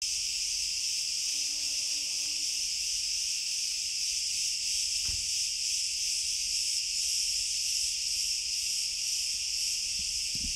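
Steady chorus of cicadas, a shrill continuous buzz holding level throughout, with one faint knock about halfway through.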